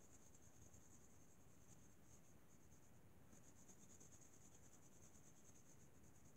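Near silence: quiet room tone with a faint, flickering high-pitched hiss.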